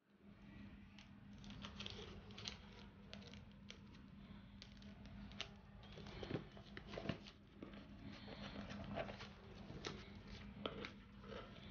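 Plastic shrink wrap being picked at and peeled off a cardboard phone box: faint, irregular crinkling and scratching with small clicks, over a faint steady hum.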